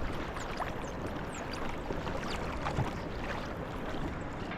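Water washing and lapping along a pedal kayak's hull as it moves, a steady noisy wash with small splashes.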